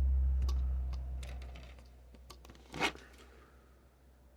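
A few light clicks and taps of small tablet parts being handled and fitted during reassembly, the loudest a little under three seconds in. A low hum fades out over the first two seconds.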